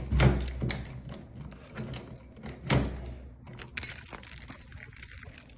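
Keys jangling and clicking against metal lock hardware, a dense run of small rattles and ticks, with two heavier thumps about a quarter second in and near the middle.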